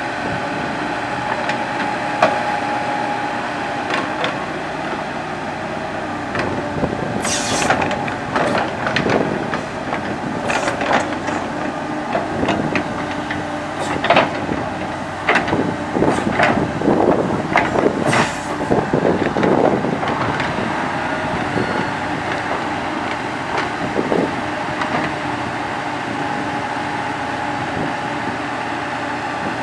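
Komatsu PC70 hydraulic excavator's diesel engine running steadily, with a busy run of knocks, clanks and scrapes from the bucket working soil from about a quarter of the way in to about two thirds through, including two short hissing bursts.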